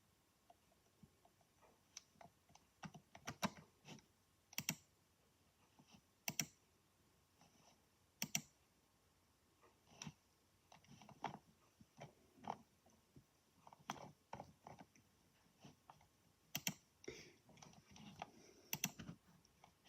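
A desktop PC making scattered, irregular clicks and crunches, one or two a second with quiet gaps between, which the owner calls grinding noises.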